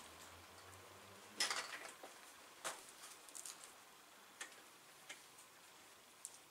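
Faint, irregular light clicks and ticks from hands working at a road bike's handlebar and stem during reassembly, with a short rustling cluster about one and a half seconds in.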